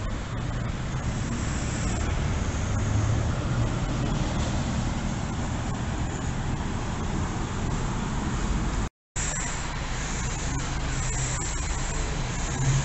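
City bus engine running as buses pull through the interchange, over steady road traffic noise. The sound cuts out completely for a split second about two-thirds of the way through, then the same engine and traffic noise carries on.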